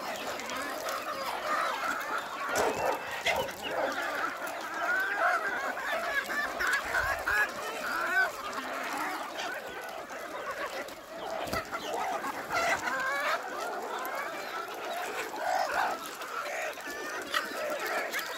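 A flock of chickens clucking continuously, many birds calling over one another as they crowd together to feed on a treat.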